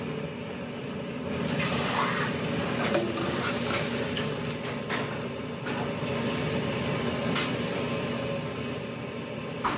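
Thin crepe batter sizzling in a hot black steel pan greased with clarified butter as it is swirled to coat the pan. The hiss starts about a second and a half in and fades near the end, over a steady low hum.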